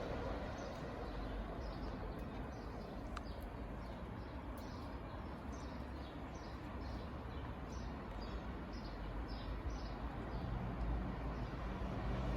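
A small bird singing a run of short, falling chirps, about two a second, over a steady low outdoor rumble. A low hum comes in near the end.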